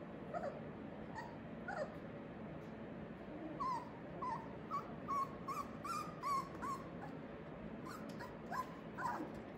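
Four-week-old Australian Labradoodle puppies whimpering and yipping: short high squeaks, coming in a quick run in the middle.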